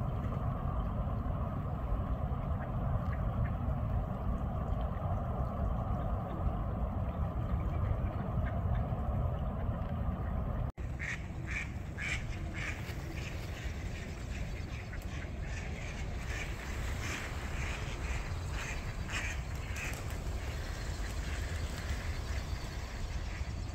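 Mallard ducks quacking: many short calls in quick runs from about halfway through, over a steady low rumble that fills the first half.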